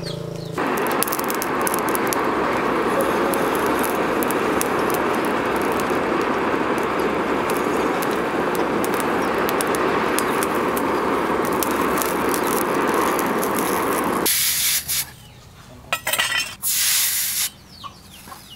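Charcoal forge fire burning hard, a steady rushing hiss, as a cleaver blade is heated in the coals for hardening. It cuts off abruptly about fourteen seconds in, and a few short, sharp noises follow.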